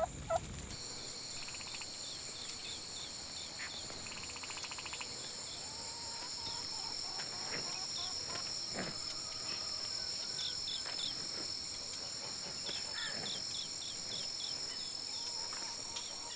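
Steady chirring of an insect chorus, several high shrill tones held on together, with short bird chirps scattered through and a fast trill a few seconds in.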